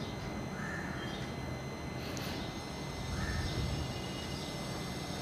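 A bird gives two short calls about two seconds apart over a steady low background hum.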